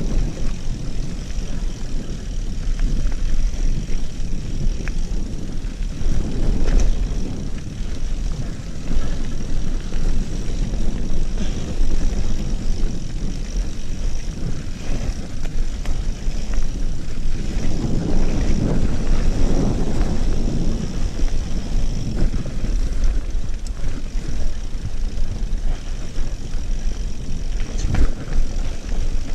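Wind rushing over the microphone and knobby mountain-bike tyres rolling over a dirt forest trail at speed, with occasional knocks and rattles from the bike over bumps.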